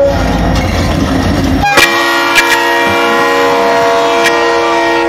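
Diesel freight locomotives rumbling past at close range. About two seconds in, the locomotive's air horn sounds one long, steady chord of several notes.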